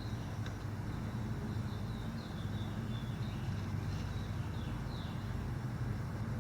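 A steady low rumble, with a small bird chirping repeatedly in quick, short downward notes in the middle.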